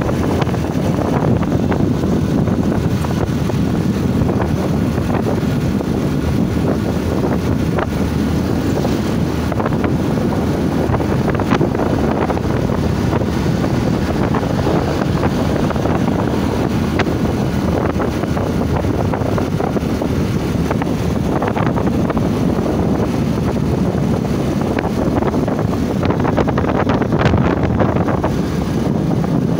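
Steady wind rush buffeting a phone's microphone on a moving Honda motorcycle, with the bike's engine and road noise mixed in beneath.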